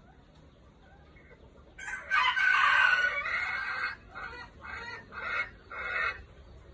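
Caged red junglefowl rooster crowing once, loud and short, about two seconds in, followed by a run of about five short clucking calls.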